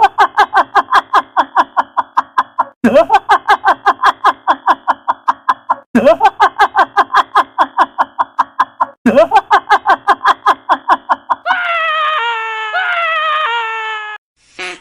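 Comedy sound effect of a rapid, pulsing cartoon-style laugh, each run opening with a quick rising swoop. It plays four times in a row, about every three seconds. Near the end a different effect follows: a few pitched notes stepping downward.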